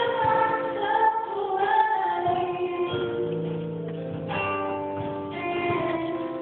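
A woman singing solo into a handheld microphone, a slow melody with long held notes.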